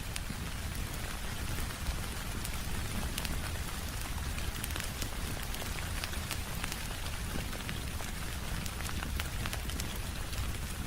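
Steady rain falling, with a crackling fire mixed in: scattered sharp ticks and pops over an even hiss and a low rumble.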